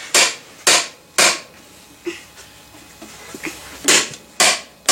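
Sharp whacks driving PVC pipes into 3-way fittings to seat the joints. Three blows about half a second apart, a pause of a couple of seconds, then more blows in the same rhythm near the end.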